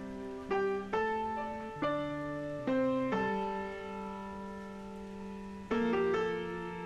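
Background piano music: slow, gentle chords, a new chord struck every second or two and left to ring.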